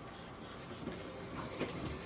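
Light handling noises from a hand stroking and patting a cat's fur, with a few small clicks near the end, over a low steady rumble.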